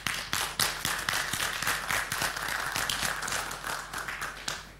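Audience applauding: a few scattered claps build into steady applause, which dies away shortly before the end.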